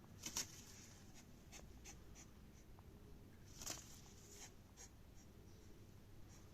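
Cockatiel making short, faint, high-pitched chirps: two louder ones just after the start and about halfway through, with softer scratchy ticks in between.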